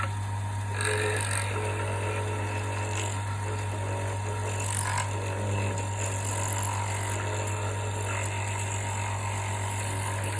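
Wood lathe running steadily with a low hum, while a drill made from music wire bores into the wood block spinning in its chuck, with light, uneven cutting and scraping.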